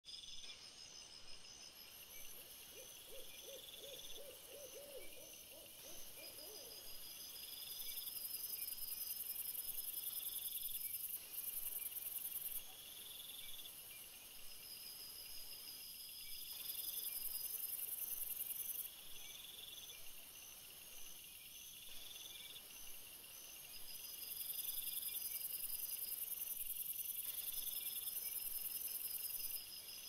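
An owl gives a short quavering series of low hoots a few seconds in. Night insects trill and chirp throughout at high pitch, swelling into louder stretches of several seconds three times.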